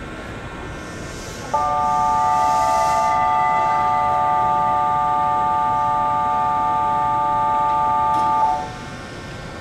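Station platform departure signal: a steady electronic chord of several fixed tones, starting about a second and a half in and cutting off sharply about seven seconds later. It signals that the train is about to leave.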